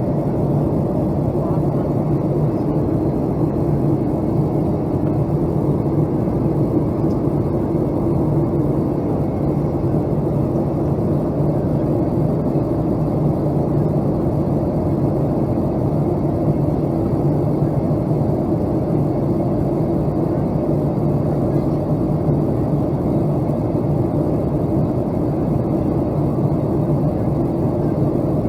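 Steady in-flight cabin noise of a Boeing 757-200: the jet engines' drone and the rush of air along the fuselage, an unchanging low hum with a couple of held low tones.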